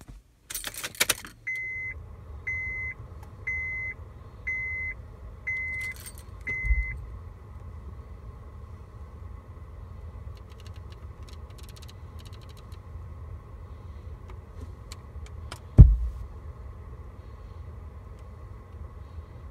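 Keys jangling, then a Honda Accord's dashboard warning chime beeping six times, about once a second, at a high pitch over a low steady rumble from the car. One loud thump comes near the end.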